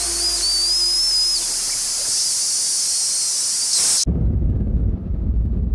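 A steady high hiss with a thin, wavering whistle over it, which cuts off suddenly about four seconds in. A low rumble of a moving vehicle follows.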